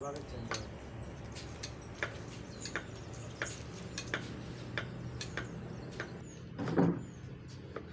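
Irregular sharp clicks and clinks of kitchen utensils, a knife and steel bowl while cutting produce, over a steady low hum. There is one louder knock near the end, along with a few faint high chirps.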